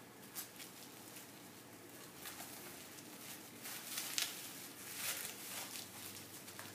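Plastic cling wrap crinkling and rustling as it is pressed around a ball of dough by hand, in faint, irregular crackles.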